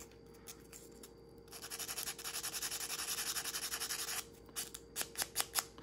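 Fine 320-grit sandpaper rubbed lightly back and forth over the carbon brush of a power window motor, cleaning gunk off its contact face: a run of quick, even scratchy strokes from about a second and a half in to about four seconds, then a few light separate scrapes.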